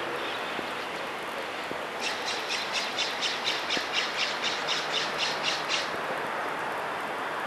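A bird calling a rapid run of harsh, squawking notes, about four a second, for nearly four seconds, over steady outdoor background noise.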